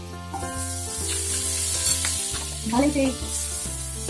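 A pat of butter sizzling as it melts in a hot non-stick frying pan, the hiss starting about a third of a second in as it hits the pan.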